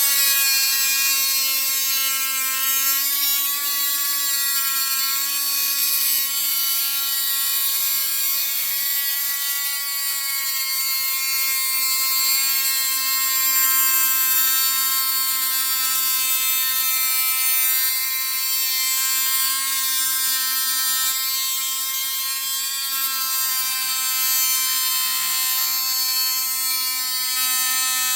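Dremel Stylo+ rotary tool running at speed 5 with a steel tile-cutting bit, drilling a hole through a thick seashell. The motor gives a steady high whine that wavers a little in pitch as the bit works into the hard shell.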